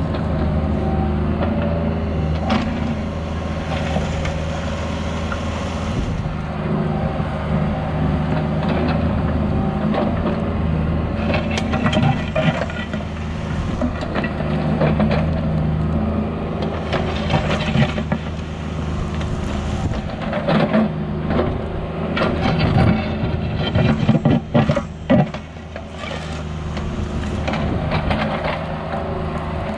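Diesel engine of a mini excavator running steadily, with irregular clanks and scrapes as the bucket digs through crushed-stone backfill.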